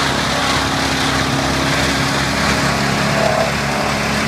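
Large whole-tree wood chipper running steadily under load, a deep engine drone under a dense rushing, grinding noise as blue spruce trees are chipped.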